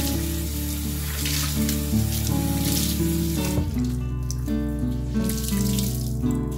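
Running water that cuts off suddenly about halfway through, under steady instrumental background music.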